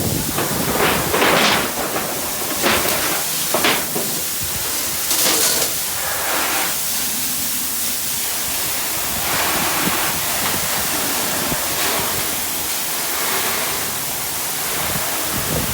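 Steady rushing hiss of water spraying from a fire hose, with a few short louder surges in the first six seconds.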